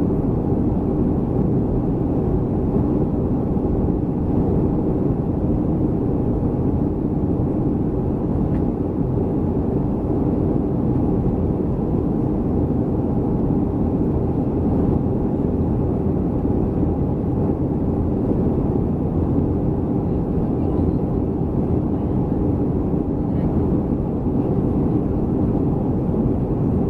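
Steady cabin noise inside a Boeing 737-300 airliner: engine and airflow noise, mostly low-pitched and even, with no change in level.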